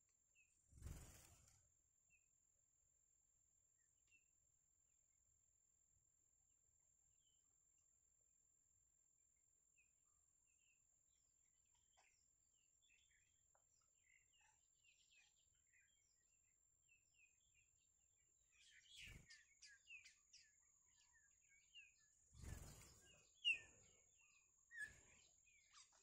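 Faint, high, short chirps from baby birds in a grass nest, scattered at first and growing busy and louder in the last several seconds while a parent feeds them. A few soft knocks of the nest and grass come in between, over a thin steady high-pitched whine.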